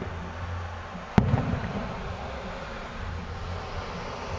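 Aerial firework shell bursting with one sharp bang about a second in, followed by a rumbling echo.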